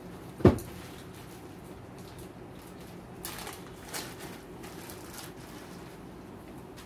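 One thump about half a second in, then a clear plastic bag crinkling in short spells as it is handled and opened, over a low steady background hum.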